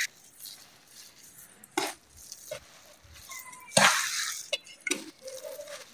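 Hands mixing a kebab mixture of beef mince, grated potato, onion and spices in a bowl: soft squishing and scraping, with a few sharper clinks against the bowl, the first about two seconds in.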